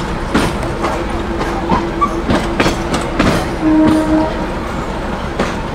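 Narrow-gauge diesel train rolling slowly into a station, its wheels clattering over the rail joints, with a faint steady tone underneath. A short horn toot sounds a little under four seconds in.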